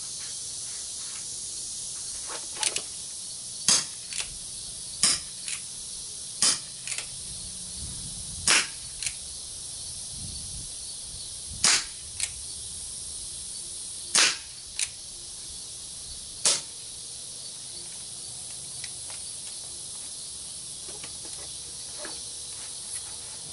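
Umarex Colt Single Action Army CO2 BB revolver firing a string of sharp pops, one to three seconds apart, over the first two-thirds. Most pops are followed by a fainter tick about half a second later. A steady high insect hiss runs underneath.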